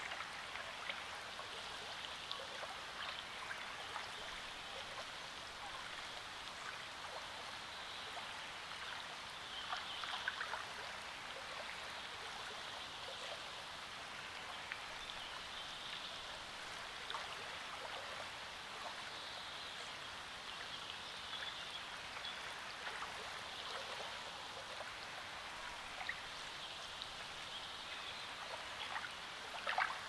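Small lake waves lapping and splashing at a reedy shore: a steady, gentle sloshing with many small splashes, a little louder about ten seconds in and again near the end.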